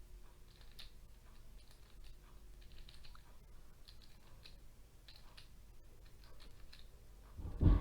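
A 3x3 Rubik's cube having its faces turned one after another through a solving algorithm: a run of soft, irregular plastic clicks and clacks, with a low bump near the end.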